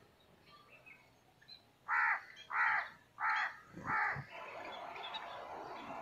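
A crow cawing four times in quick succession, about half a second apart, two to four seconds in. Faint small-bird chirps come before the caws, and a steady rushing noise sets in after them.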